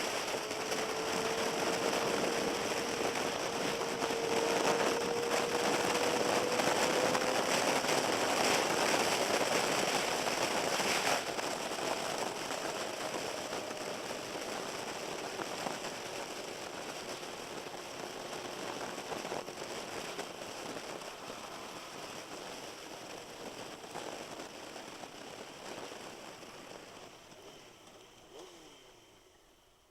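600 cc inline-four sportbike on a wet road: a steady engine note under rough, crackling wind and tyre-spray hiss. The noise builds over the first few seconds and then fades gradually through the second half.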